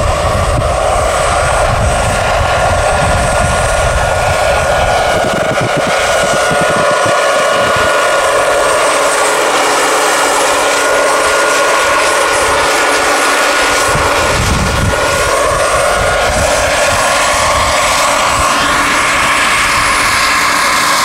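Turbine engine of a large-scale RC Bell 429 model helicopter running with a steady high whine, mixed with the whirring of its main rotor as it hovers and sets down.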